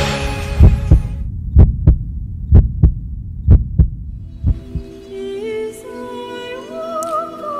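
A heartbeat sound effect: five low double thumps about a second apart, the last one fainter. Soft sustained music notes then fade in, stepping upward.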